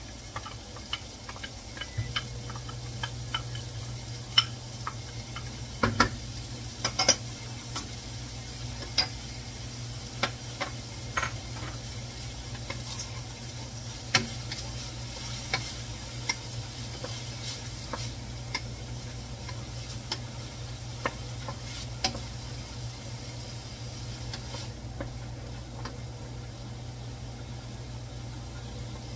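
Onion and garlic sizzling in oil in a frying pan while a wooden spoon stirs them, with irregular sharp knocks and scrapes of the spoon against the pan.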